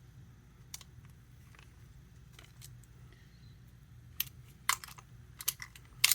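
Small clicks and clacks of an airsoft 1911 pistol's slide and parts being fitted back onto the frame during reassembly: a faint click about a second in, then a quick run of sharper clicks over the last two seconds.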